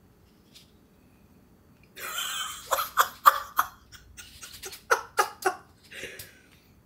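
A man's breathy laughter in short bursts, starting about two seconds in and coming in two quick groups of three.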